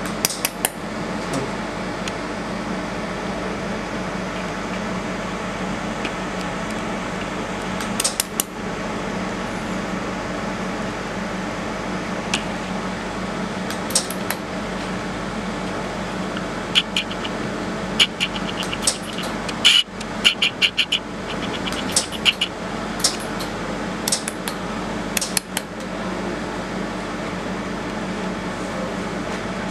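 Laser spot welding machine with its cooling system humming steadily. Sharp single clicks from the welding pulses come every few seconds, with a quick run of clicks about two-thirds of the way through.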